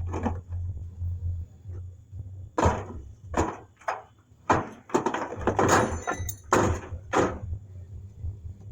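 A cluster of sharp clanks and scrapes of tools and sheet metal from work on an old truck's fender, about seven in a few seconds, over a steady low hum.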